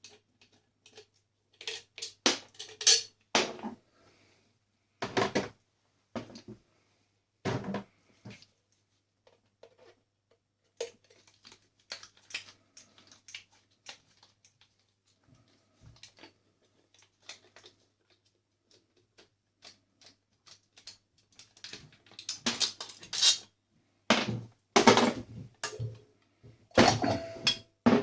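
Metal and plastic parts of a coffee maker knocking and clinking as it is dismantled for scrap. The knocks come in scattered clusters, with a denser run of clatter over the last few seconds.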